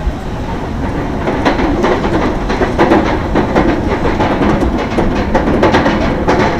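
Roller coaster train climbing a chain lift hill: the lift chain runs with a steady rumble and the anti-rollback dogs clatter in rapid clicks over the ratchet track, the clicking setting in about a second in.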